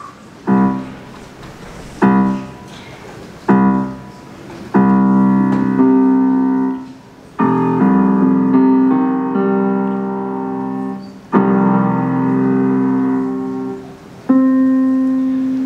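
Roland keyboard set to a piano sound, playing a slow intro. Three short struck chords come about a second and a half apart, each fading away, then longer held chords follow that change every three to four seconds.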